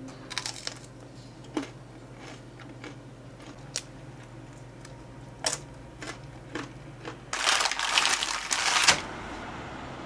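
Scattered light clicks and taps of objects being handled, then about a second and a half of loud crinkling, crushing noise near the end.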